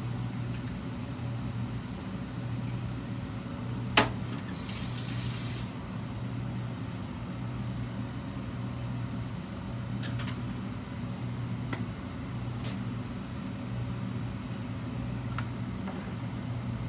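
An egg cracked sharply once on the rim of a stainless steel bowl about four seconds in, followed by a short hiss as it is opened into the bowl. A few faint ticks come later, over a steady low hum.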